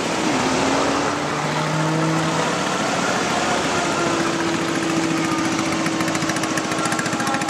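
Quad bike (ATV) engine running at idle, its pitch shifting slightly; the even firing pulses grow more distinct near the end.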